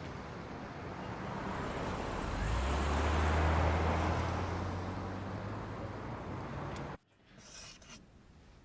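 A car passing by on a street: engine hum and tyre noise swell to a peak about three and a half seconds in, then fade. The sound cuts off suddenly near the end, leaving quiet room tone.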